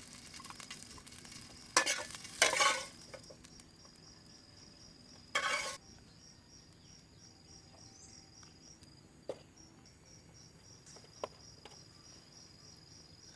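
A utensil scraping in a pan a few times, about two seconds in and once more near the middle, over a faint sizzle as food is stir-fried. An insect chirps in a steady, even pulse.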